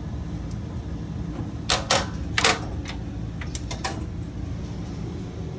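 A handful of sharp clicks and knocks, about five in all, between one and four seconds in, over a steady low hum. They come from handling the RV kitchen's fittings.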